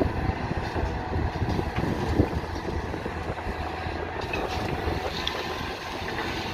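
Diesel engine of a heavy earthmoving machine running steadily, with wind buffeting the microphone.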